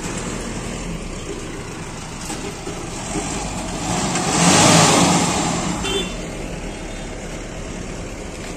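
Pickup truck engine idling steadily, with another vehicle passing close by about halfway through, its sound swelling and fading over about two seconds.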